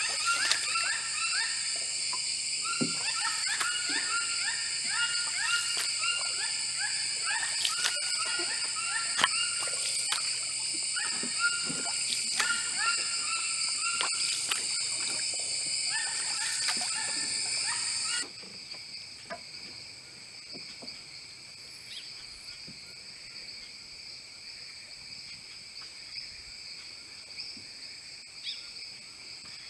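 Rainforest insect chorus with a steady high buzz, overlaid with rapidly repeated short chirping calls and occasional knocks and splashes from a wooden canoe paddle. About two thirds of the way in the sound cuts abruptly to a quieter chorus without the highest buzz or the chirps.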